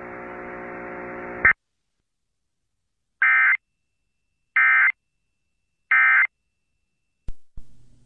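Emergency Alert System end-of-message data tones: three short, identical bursts of the digital header code, sent about a second and a half apart to close the alert. Before them a steady low buzz cuts off suddenly about a second and a half in, and a faint click comes near the end.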